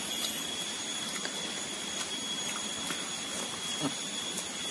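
Steady high-pitched drone of forest insects, with a few faint soft clicks of chewing and eating by hand.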